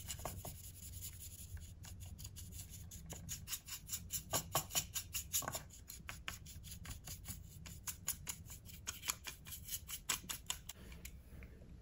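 Stiff brush scrubbing weathering powder into the floor of a plastic model mineral wagon: a quick, irregular run of faint scratchy bristle strokes that starts about two seconds in and dies away near the end.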